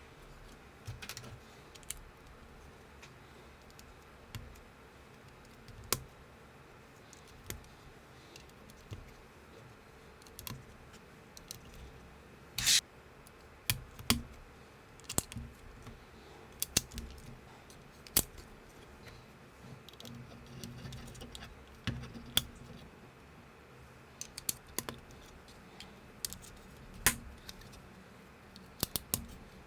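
Plastic building bricks being handled and snapped together: irregular sharp clicks and taps, a few seconds apart or closer, the loudest about 13 seconds in.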